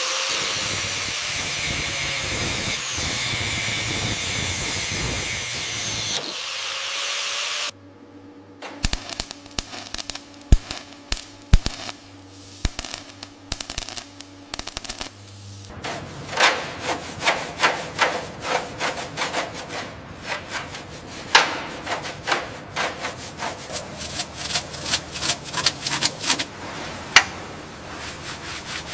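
Restoration work noises. A steady hiss lasts about six seconds and cuts off. Scattered clicks and knocks follow over a low hum, then a long run of quick rubbing strokes, two or three a second, like sanding or scraping.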